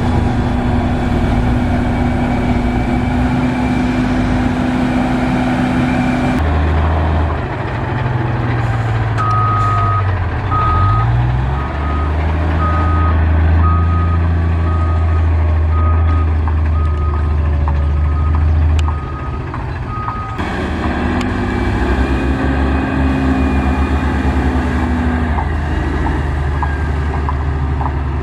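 Heavy road-construction machinery running on diesel engines. A reversing alarm beeps about once a second for some ten seconds in the middle. The engine sound changes abruptly twice.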